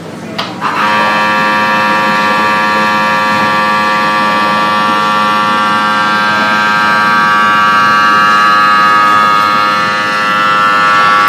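A loud, steady buzzing alarm tone. It starts abruptly after two short clicks just under a second in and holds without a break.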